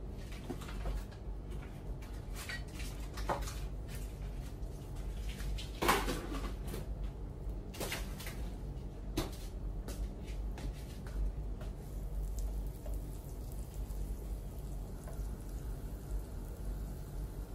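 Butter melting and starting to sizzle in a nonstick wok as it heats for frying, with scattered small clicks and knocks, the loudest about six seconds in, over a low steady hum. Near the end a wooden spatula pushes the foaming butter around the pan.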